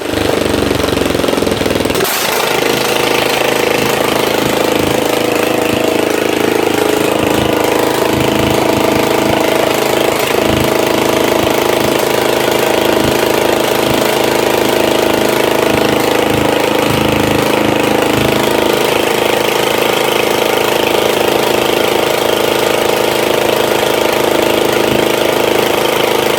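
Freshly rebuilt old John Deere engine starting up: the sound changes sharply about two seconds in, and the engine then runs steadily.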